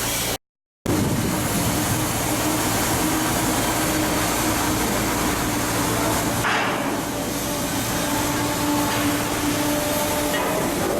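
Steady industrial din of shipbuilding work on a hull, with no single tool standing out. It cuts to silence for about half a second just under a second in.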